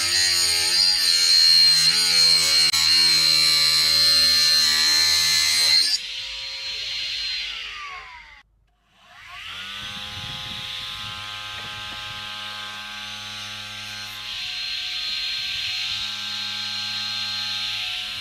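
Homemade PVC-bodied electric saw with a 775 DC motor cutting wood, its pitch dipping and wavering under load. About six seconds in it is switched off and winds down to a stop, then starts again a second later and runs steadily.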